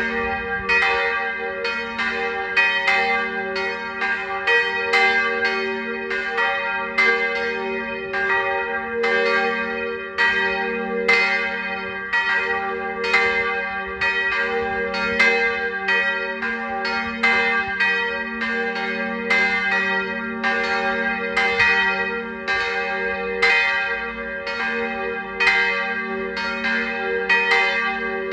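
Swinging church bell ringing for a service. Its strokes come quickly, two or three a second, and each stroke's hum carries over into the next.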